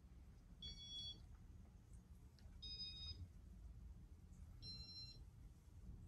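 Casablanca Stealth ceiling fan's control beeping three times, one short multi-tone beep about every two seconds, faint over a low steady hum.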